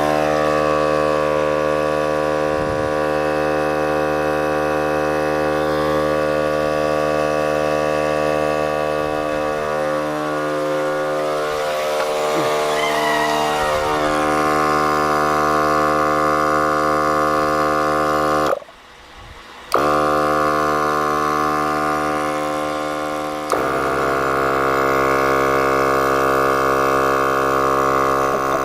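Viair 88P 12-volt portable air compressor running with a steady, loud electric hum while it inflates a tire from about 18 psi toward 40 psi. About two-thirds of the way through, the sound drops away for about a second and then comes back, turning a little louder and brighter a few seconds later.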